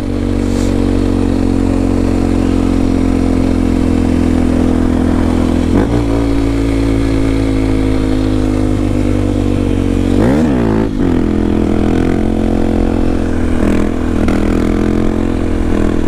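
Honda XR250 Tornado's single-cylinder engine running steadily while the motorcycle is ridden along the road. Its pitch dips briefly and recovers twice, about six and ten seconds in.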